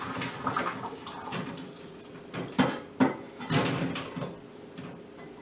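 Metal pot and colander clattering in a stainless steel kitchen sink, with two sharp knocks about two and a half and three seconds in.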